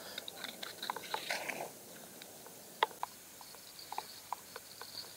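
Irregular small clicks and crackles, with a denser crackling about a second in.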